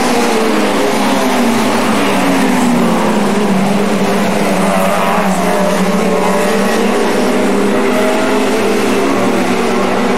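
Several lightning-rod saloon stock cars racing round the track together. Their engines rev and their pitch rises and falls as they accelerate and pass, over a steady rush of noise.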